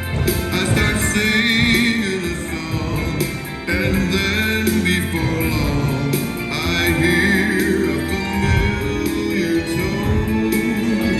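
Music with singing: a song from an animatronic stage show's recorded soundtrack, voices carried over a steady band backing.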